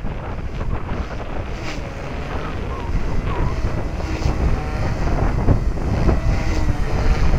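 Strong wind buffeting the microphone, growing louder in the second half, with the faint whine of an Align T-Rex 250 electric RC helicopter wavering up and down in pitch as it manoeuvres.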